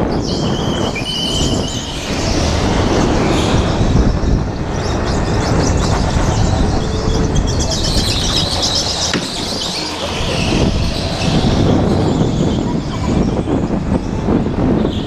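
Go-kart under way at racing speed, a steady rushing noise with higher squealing streaks at times, a little over a second in and again around the middle.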